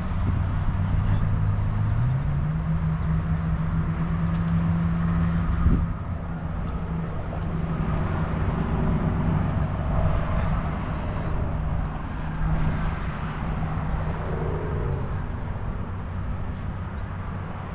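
Road traffic on a highway bridge: a steady low rumble with an engine drone that rises in pitch about two seconds in and fades out near the end.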